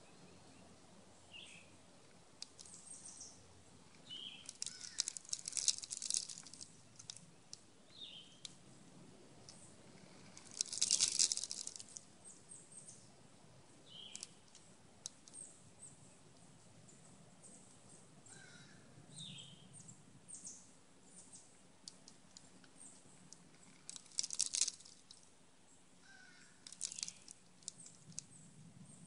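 Eastern gray squirrel foraging in a pile of bird seed close by, with several bursts of crackly crunching and rustling of seeds, the loudest near the middle. A bird gives short falling chirps every few seconds in the background.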